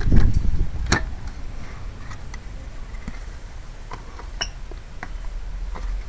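Low rumble at the start, then a sharp click about a second in and scattered light clicks and taps: the hinged cover of an outdoor air-conditioner disconnect box being handled and lifted open.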